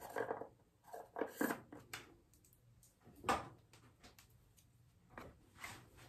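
Scattered soft clicks and rustles of makeup items being handled as she reaches for the next powder compact, the strongest one about three seconds in.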